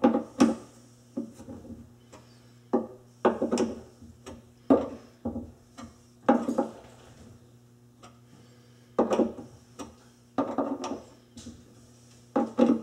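Screwdriver tightening the mounting screws of an InSinkErator quick-lock disposal mount against a composite sink, little by little. Irregular short spells of creaking and clicking, each a second or less, with quiet pauses between.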